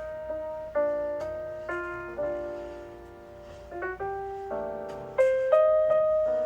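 Background piano music: single notes and chords struck and left to ring away.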